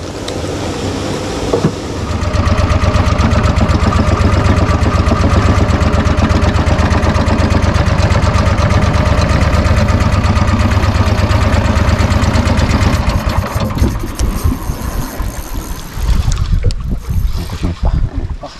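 A small fishing boat's engine picks up about two seconds in and runs steadily with an even, rapid pulse, then eases off about fourteen seconds in. Irregular knocks and rattles follow near the end.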